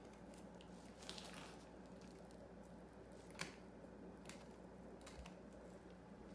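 Near silence with a few faint clicks and scrapes of a fillet knife working along a fish on a plastic cutting board, the clearest tick about three and a half seconds in.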